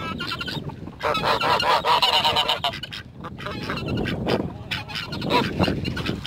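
Domestic geese honking in runs of rapid, repeated calls, with wind rumbling on the microphone.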